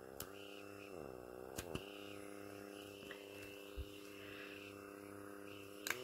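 Small electric motor of a pore vacuum (blackhead remover) running with a faint, steady hum. Its pitch wavers twice in the first second and a half, then holds, with a few light clicks.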